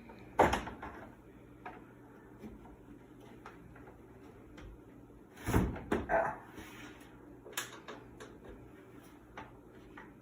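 Small hand tools being handled and tried on a screw: a few sharp knocks and clacks, the loudest about half a second in and twice around the middle, with fainter clicks between.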